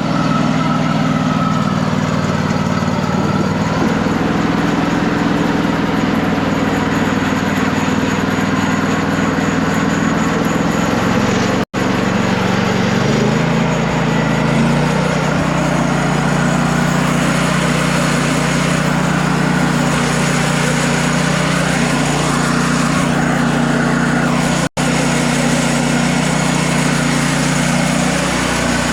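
Sawmill engine running steadily, its pitch stepping down slightly about halfway through. The sound cuts out for an instant twice.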